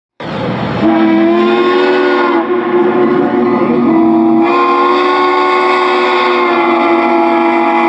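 Steam locomotive whistle blowing one long, steady blast that sounds several notes together, chime-like. Its tone shifts about two seconds in and again about four and a half seconds in.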